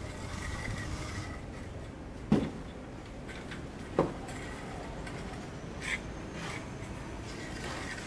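Knocks from construction work: two sharp knocks about a second and a half apart, then a fainter one about two seconds later, over a low steady background.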